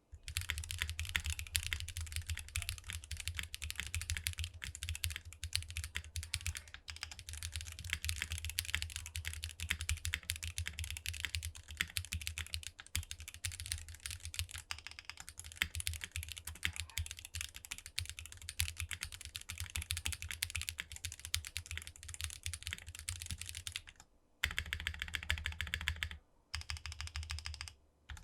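Qwertykeys QK75 mechanical keyboard, with an FR4 plate, bottom foam, SWK Neon switches and GMK Serika keycaps, typed on quickly and continuously. There are a few brief pauses in the second half.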